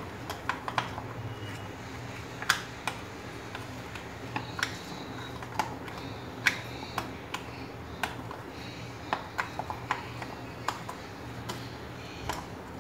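A spoon stirring flour into butter-biscuit batter in a bowl, clicking and tapping irregularly against the bowl's side.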